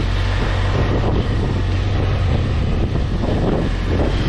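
Wind buffeting the microphone while a BMW F700GS motorcycle rides along at road speed, with the parallel-twin engine's steady low drone underneath.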